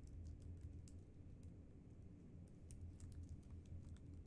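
Computer keyboard being typed on: faint, irregular keystroke clicks over a low steady hum.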